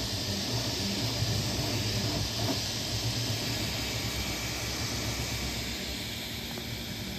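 Creality Ender-3 V3 KE 3D printer printing: a steady hiss of its cooling fans over a low, uneven hum from the moving print head and bed.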